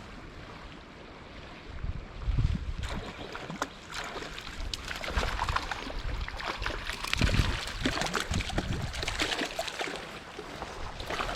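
Trout stream water running and splashing, with scattered small splashes and clicks, and low rumbling surges about two seconds in and again around seven seconds.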